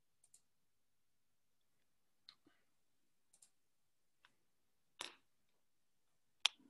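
Scattered computer mouse clicks and small desk handling noises over near silence: a handful of short, faint clicks, a duller knock about five seconds in and the sharpest click near the end.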